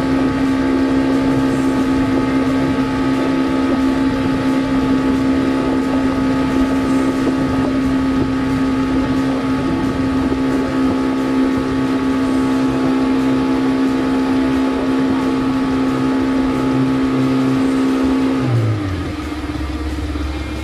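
A 40 hp outboard motor running steadily at speed, pushing a small boat along. About two seconds before the end the throttle is eased back and the engine note drops lower and quieter.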